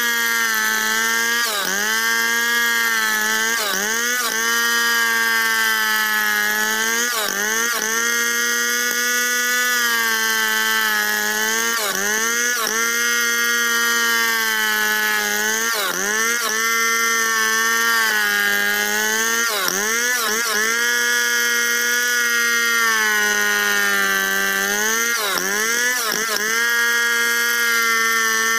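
Large Stihl two-stroke chainsaw running at high revs while ripping lengthwise through a log in freehand milling. Its pitch sags briefly every few seconds as the cut loads the engine, then climbs back.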